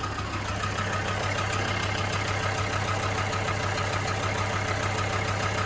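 Mercedes OM617 five-cylinder turbo diesel idling steadily, with an even, rapid ticking clatter. A license plate jiggles on its mount from the engine's vibration.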